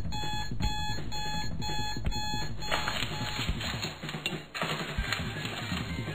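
Electronic alarm clock beeping rapidly, about three short beeps a second, stopping about three seconds in; a steady hiss with a few faint clicks follows.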